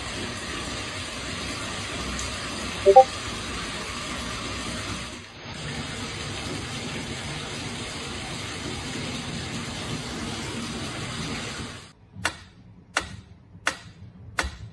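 Steady hissing noise with a brief squeak about three seconds in. About twelve seconds in it gives way to a wind-up pendulum metronome ticking, roughly three ticks every two seconds.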